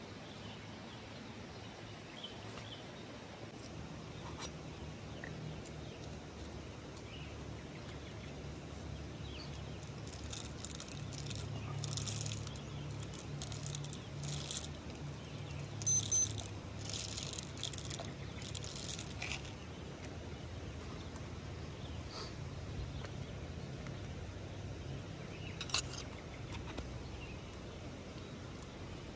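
Coffee beans poured into a stainless steel hand coffee grinder, rattling in a run of clattering bursts midway through, over a steady outdoor background beside a wood fire.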